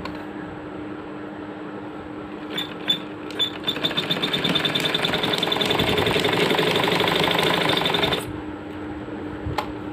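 Sewing machine stitching the edge seam of a shirt cuff. A few single stitches come about two and a half seconds in, then it runs fast and steady for about four and a half seconds and stops suddenly. A single click comes near the end.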